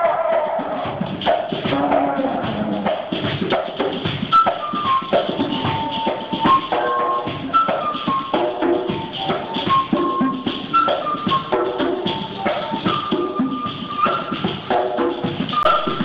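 Live music on natural, handmade instruments: a bamboo flute plays a melody of short held notes over shaken and hand-struck percussion with wooden clicks.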